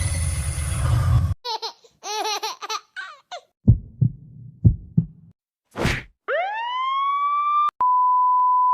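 A quick run of editing sound effects: a noisy burst that cuts off, warbling cartoon-like tones, four low heartbeat-like thumps, a click, a whistle-like tone sliding up and levelling off, then a steady beep like a censor bleep.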